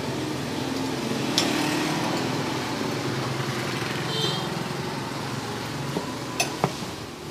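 A small engine running steadily, fading toward the end, with a few sharp knocks of a cleaver on a wooden chopping board, two of them close together near the end.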